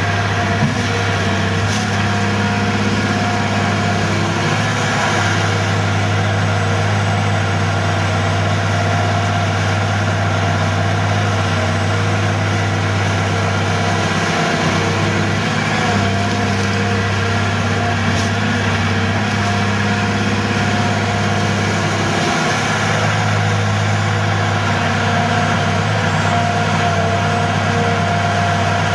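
Caterpillar 345B long-reach excavator's diesel engine running steadily while the machine digs, swings and dumps gravel, its low note dipping briefly twice.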